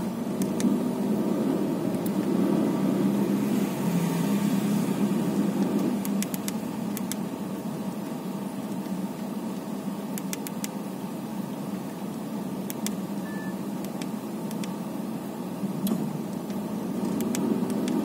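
Steady low hum of a car idling, heard inside the cabin, with faint clicks now and then as the keys of a Nokia 1110 are pressed.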